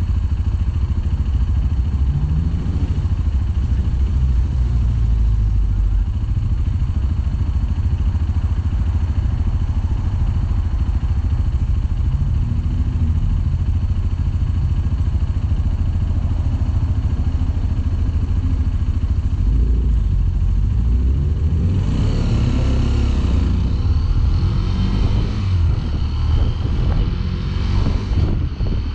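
Sinnis Terrain 125's single-cylinder four-stroke engine running while riding, its pitch rising and falling a few times with the throttle, under a heavy low rumble of wind on the microphone. From about two-thirds of the way through the sound gets busier, with more high-pitched noise.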